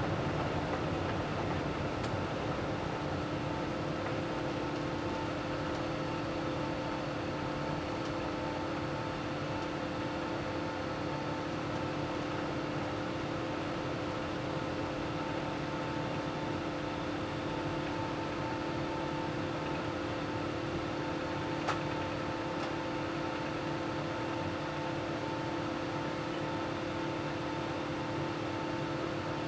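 Inside the cabin of an Airbus A380 at takeoff and initial climb: the steady rush of its Rolls-Royce Trent 900 engines at takeoff power and of air along the fuselage, with several steady hums over it. There is one faint click about three-quarters of the way through.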